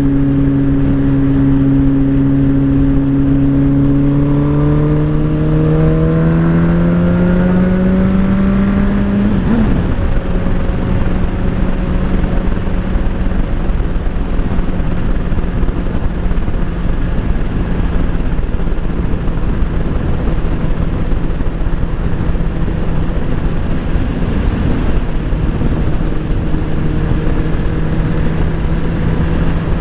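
Motorcycle engine under way. Its pitch climbs steadily over the first ten seconds or so as the bike accelerates, breaks briefly, then settles into a steady cruise. Constant wind and road noise sit underneath.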